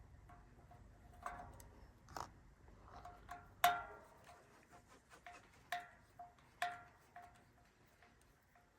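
Irregular light metallic clinks, each ringing briefly at the same bell-like pitch, the loudest about three and a half seconds in: a steel bicycle disc brake rotor ringing as the tool and bolts knock it while it is unbolted from the wheel.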